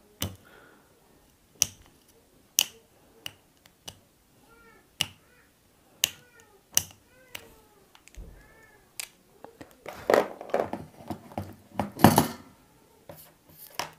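Sharp clicks and taps of an LED bulb and small tools being handled, with a cat meowing faintly several times in the middle. Near the end there is a louder clatter as a soldering iron is lifted from its coiled metal stand.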